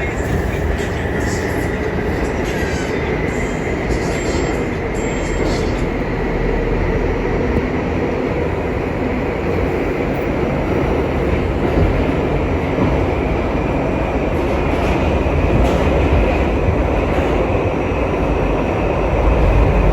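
New York City Subway R68 train running steadily on the D line, a continuous rail noise that grows a little louder near the end.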